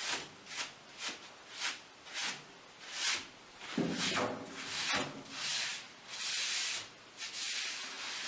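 Paper towel wiping oil over a wood cookstove top in repeated swishing strokes, about one or two a second, rubbing in a thin coat to season the stove.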